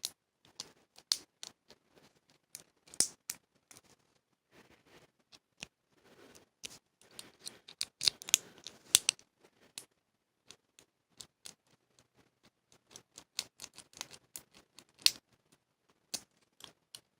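Metal lock pick working inside a cheap padlock's keyway under light tension: irregular sharp clicks and scratches of the pick against the pins, coming in busier spells.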